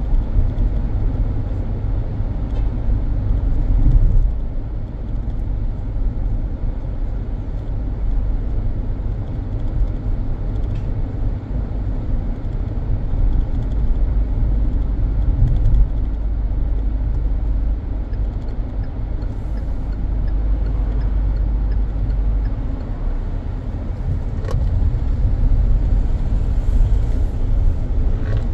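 Car driving along a road: a steady low rumble of engine and tyres, swelling briefly about four seconds in.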